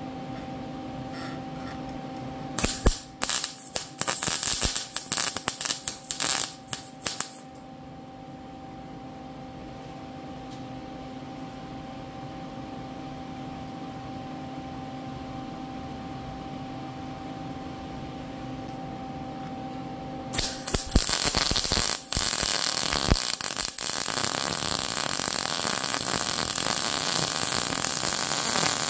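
Wire-feed welding gun arc crackling on steel tubing. There are several short bursts, like tack welds, between about 3 and 7 seconds in, and a steady hum between welds. From about 20 seconds in, a continuous weld bead crackles to the end.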